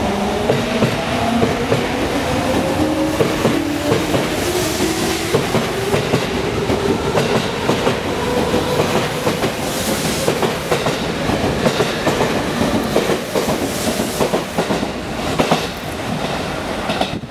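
JR 207 series 900 electric train pulling out of the station, its VVVF inverter traction motors whining in several tones that rise slowly in pitch as it gathers speed. Its wheels clatter over the rail joints as the cars pass.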